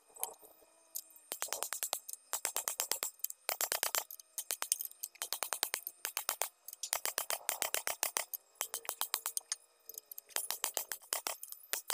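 Ratcheting wrench clicking on a differential's pinion nut: short runs of quick, evenly spaced clicks, several in a row, as the wrench is swung back and forth.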